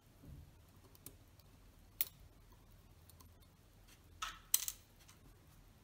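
Small, sparse metallic clicks and ticks of steel tweezers working the tiny parts of a Synchro-Compur leaf shutter: a faint click about a second in, a sharp one at about two seconds, and a louder pair of clicks a little past four seconds.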